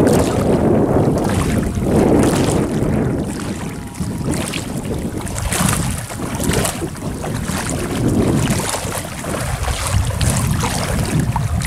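Shallow water sloshing and splashing as a person wades through it, dragging a cast net. The sound comes in uneven surges, with wind buffeting the microphone.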